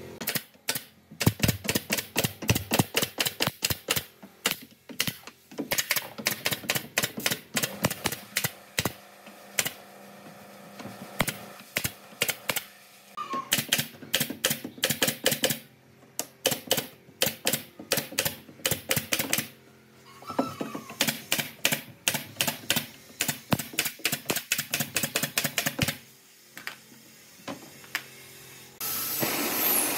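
Pneumatic nail gun firing nails into pine pallet boards in quick runs of sharp shots, about four a second, with short pauses between runs. Near the end a steady hiss takes over.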